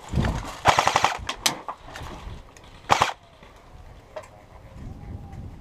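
Airsoft automatic rifle firing a short, rapid burst about a second in, followed by a couple of single shots and one louder single crack near three seconds in.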